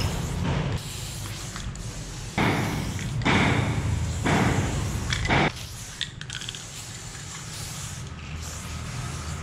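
Aerosol spray-paint can hissing in three bursts as orange graffiti strokes are laid on a wall. The bursts come about two to five seconds in: two short ones and a longer one, over a steady low rumble.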